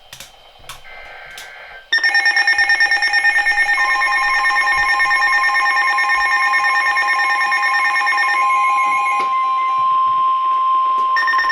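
Emergency alert warning tones. After a faint, chirpy data burst, a loud electronic alarm starts about two seconds in, several shrill tones pulsing rapidly together. A steady single tone soon joins it, and sounds alone for a few seconds near the end before the pulsing tones come back.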